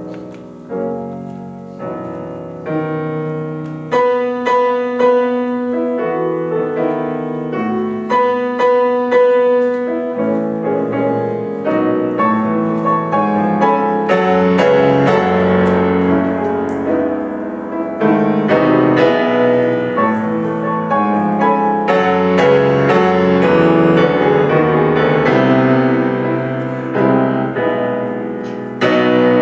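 Solo piano playing a Christmas hymn arrangement, single struck notes over chords at first, turning to fuller, sustained chords about a third of the way in.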